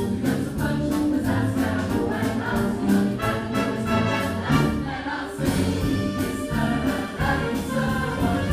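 Mixed choir singing with a full wind band of brass, woodwinds and percussion, over a steady beat that breaks off briefly a little after five seconds in and then resumes.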